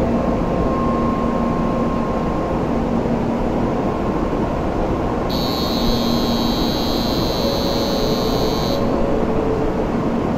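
Steady rushing, whirring noise of a Shinkansen train standing in the station with its equipment running. About halfway through, a high steady buzzer-like electronic tone sounds for roughly three and a half seconds.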